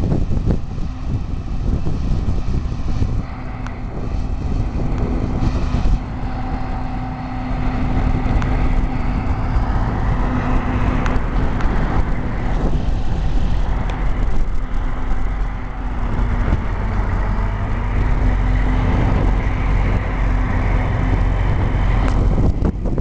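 John Deere 7950 self-propelled forage harvester running under load while chopping wheat silage: a loud, steady engine and machinery drone with a held hum that wavers slightly in pitch.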